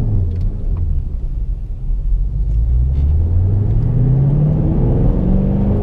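2014 Shelby GT500's supercharged 5.8-litre V8, heard from inside the cabin. The revs drop in the first second, then climb steadily as the car pulls through a gear.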